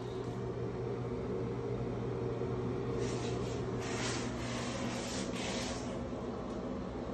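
A steady low mechanical hum, with a soft hiss-like rustle from about three to six seconds in.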